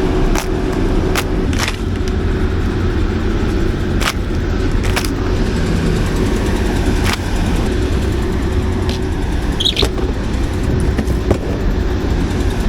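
A 400 kW Generac natural-gas standby generator running with a steady low drone, with scattered sharp knocks and clatters over it.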